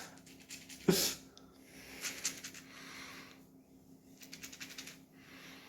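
Soft, wet rustling and crackling of hands scrunching product-soaked curly hair, with a brief sharp knock about a second in.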